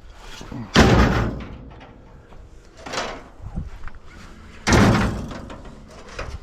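Heavy slams: two loud ones about four seconds apart, with a lighter knock between them.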